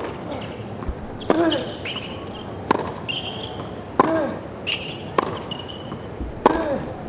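Tennis rally on a hard court: five sharp racket strikes on the ball, about a second and a quarter apart. Some strikes come with a player's short grunt, and shoes squeak high on the court surface between shots.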